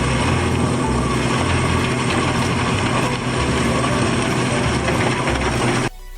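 Sound effect of an excavator's rock wheel attachment at work: a dense mechanical rumble and clatter with an uneven low throb. It cuts off abruptly near the end, and electronic music starts.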